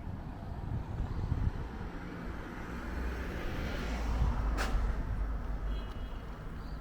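A vehicle passing by: its engine and tyre noise swells to a peak about four seconds in and then fades, with a sharp click just after the peak. Low wind rumble on the microphone underneath.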